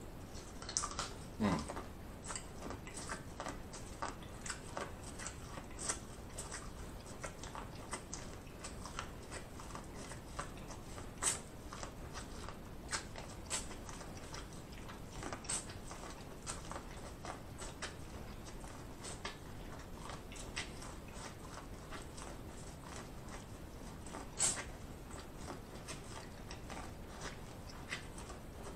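Close-miked chewing and biting of sauce-dipped corn on the cob: irregular wet mouth clicks and smacks, with a few louder bites.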